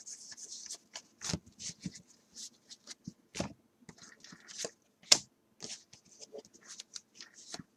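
Stack of Gypsy Queen baseball cards handled and flipped through one by one, with short, irregular rustles and snaps of card against card and one sharper click about five seconds in.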